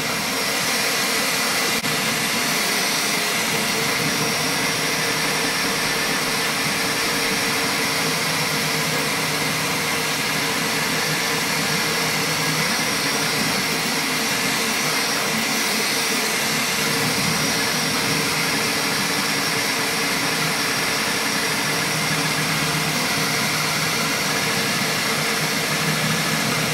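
Creality K1C 3D printer running a high-speed print: a steady whirring of its fans and motors as the print head moves quickly over the part.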